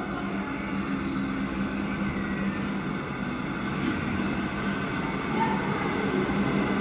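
Comeng electric suburban train running slowly into the station platform: a steady rumble of wheels on rail with a constant low hum from the train, growing slightly louder as it draws near.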